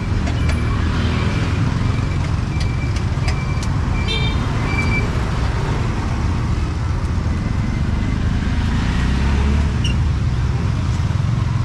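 City street ambience: a steady low traffic rumble, with scattered clicks and short high-pitched tones in the first half.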